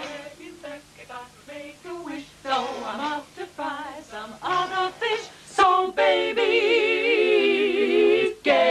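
Female vocal trio singing in close harmony: a run of short sung notes, then a long chord held with vibrato from about six seconds in until just before the end.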